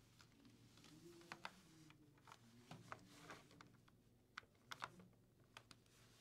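Near silence with faint, irregular clicks and taps scattered through it, over a low room hum.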